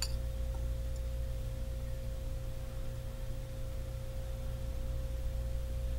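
A steady single-pitched tone with a low hum beneath it, unchanging throughout; no spoon or jar sounds stand out.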